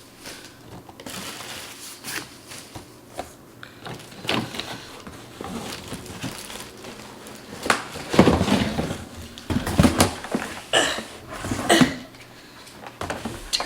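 Cardboard and plastic packaging rustling, with knocks and bumps, as a large kitchen multi-cooker is unpacked; the handling gets louder and busier about eight to twelve seconds in.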